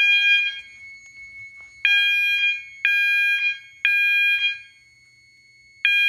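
System Sensor MASS alarm sounding an 800 Hz tone coded to temporal code-3 by the fire alarm panel: half-second blasts in groups of three with a longer pause between groups, signalling an active fire alarm after a heat detector was tripped. A fainter steady high tone carries on between the blasts.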